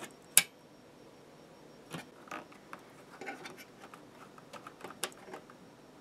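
Ethernet cable's plastic RJ45 plug being handled and pushed into the gigabit switch's port: one sharp click about half a second in, then scattered small clicks and light rattles.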